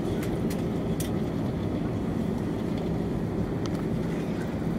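Steady low rumble heard inside the cabin of an Airbus A321 on its landing rollout after touchdown, ground spoilers up. A few light rattling clicks come in the first second and once more near the end.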